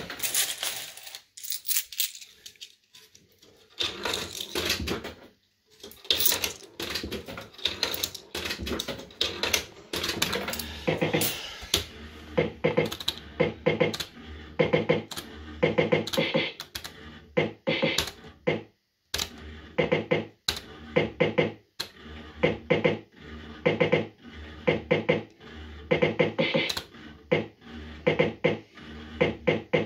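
JPM Red Hot 6 fruit machine being played spin after spin: the reels spin and clunk to a stop amid rapid clicking, with the machine's electronic beeps and jingles repeating every couple of seconds.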